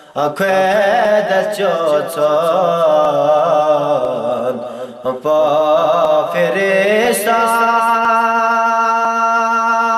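Devotional chanting of a Balti qasida, a sung praise poem for Hazrat Ali. A single melodic vocal line winds and wavers through ornamented turns, drops away briefly about five seconds in, then settles into a long steady held note from about seven seconds.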